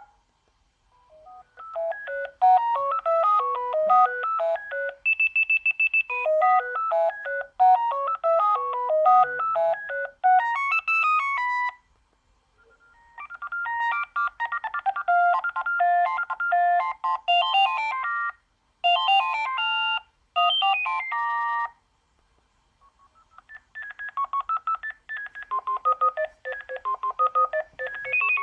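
Sagem my101X mobile phone playing its built-in ringtone melodies through its small speaker, one electronic tune after another. One tune ends about twelve seconds in, a second plays until about twenty-two seconds, and a third begins near the end.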